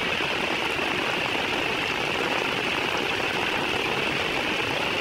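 Heavy rain pouring down onto a paved road, a steady, even hiss of downpour.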